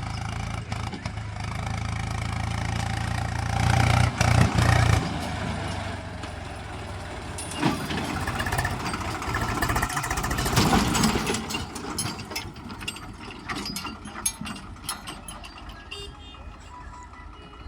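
Diesel engine of heavy machinery running, loud for about the first five seconds and then quieter, with a scatter of sharp clanks and knocks in the latter half.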